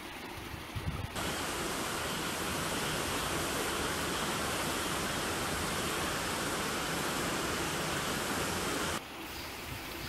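Mountain stream rushing over rocks: a steady, even rush of water that cuts in abruptly about a second in and cuts off abruptly near the end.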